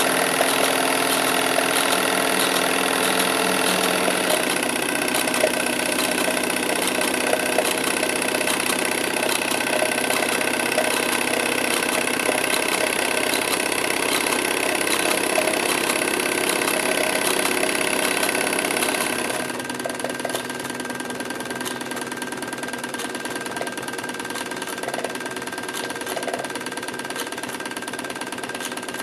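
Vintage Doll tinplate live-steam locomobile running steadily, its belt driving a blacksmith figure whose metal-headed hammer taps rapidly on a small anvil. The whole sound drops a little in level about two-thirds of the way through.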